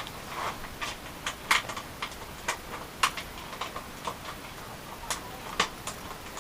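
Irregular clicks and knocks of a PC case's side panel being worked back onto the chassis, a dozen or more sharp taps with the loudest about one and a half and three seconds in.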